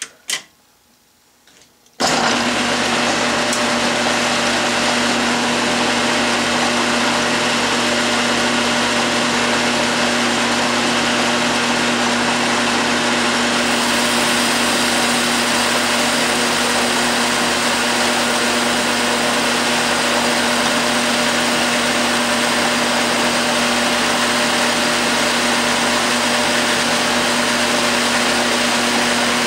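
12-inch Atlas/Craftsman metal lathe coming on abruptly about two seconds in, then running steadily with a constant hum while taking a turning pass on a soft aluminum taper.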